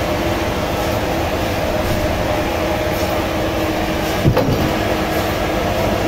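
A large band saw running and cutting through a thick wooden slab: a loud, steady mechanical drone, with one sharp knock a little over four seconds in.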